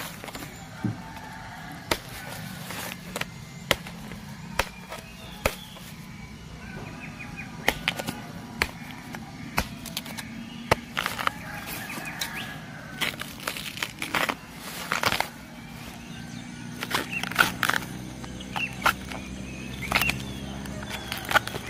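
Machete chopping into the tough outer sheaths of giant bamboo shoots, with the sheaths cracking and tearing as they are peeled away. The sharp chops come irregularly and grow more frequent near the end.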